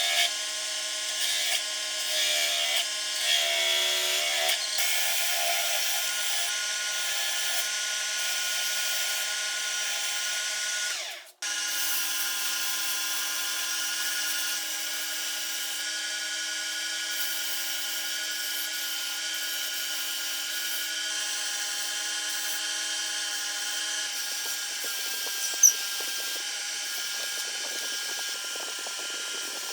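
Small electric power tool running steadily with an even motor whine, with a brief break about a third of the way through before it carries on.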